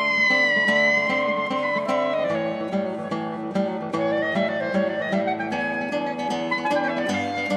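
Clarinet and classical guitar duo playing live. The clarinet holds a long note at the start while the guitar plucks a quick, steady stream of notes.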